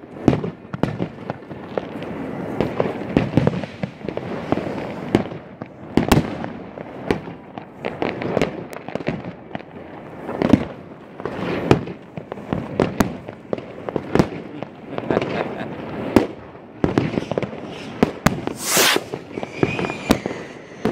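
Fireworks going off all around: a dense, irregular run of bangs and pops, some louder and some fainter, with a short sharp hiss near the end.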